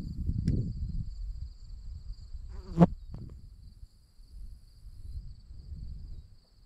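Steady high insect trill, like crickets, over a low rumble. One sharp knock just under three seconds in is the loudest sound.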